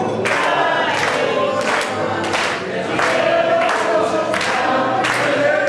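A group of people singing together, with hands clapping along in time about twice a second.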